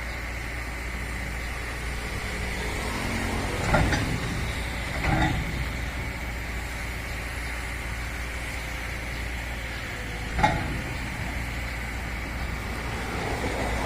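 Amphibious excavator's diesel engine running steadily, with three short sharp knocks, about four, five and ten seconds in, the last the loudest.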